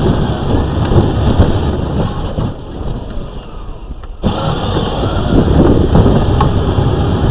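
Power Wheels ride-on toy car driving, heard from on board: a loud steady rumble of its plastic wheels and body rolling over pavement. The rumble eases off about two and a half seconds in and comes back suddenly a little after four seconds.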